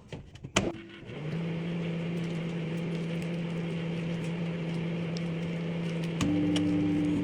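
A few sharp clicks, then a microwave oven starts up about a second in and runs with a steady electrical hum. About six seconds in the hum steps up louder, with a higher tone joining it.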